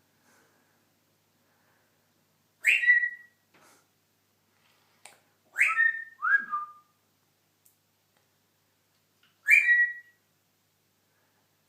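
African grey parrot whistling: four short whistles, each a sharp start that settles into a brief held note. One comes about three seconds in, two follow close together near the middle (the second lower), and the last comes near the end.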